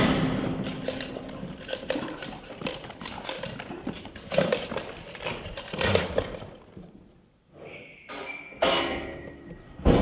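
Young bucking bull bucking with a dummy strapped to its back: repeated thuds of its hooves landing on dirt, with several louder thumps and a short lull near the end.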